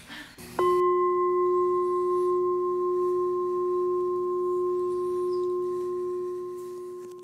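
Metal standing singing bowl struck once with its mallet, then ringing with a low tone and a higher overtone that fade slowly.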